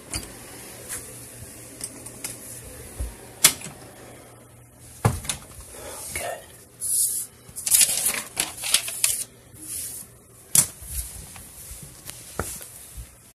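Handling noise: scattered sharp clicks and knocks with bursts of rustling, thickest a little past the middle, as a phone is moved about and things are handled.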